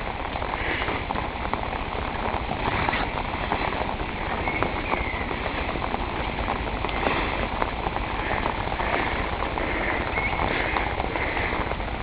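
Heavy rain falling steadily, with many sharp clicks of drops striking close to the microphone.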